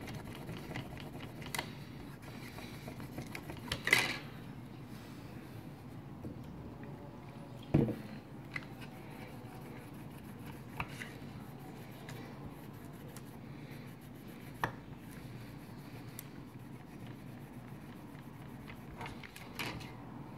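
Microfiber rag with acetone rubbing over an LG G3 phone frame to clear old adhesive, with a few light clicks and knocks, over a steady low hum.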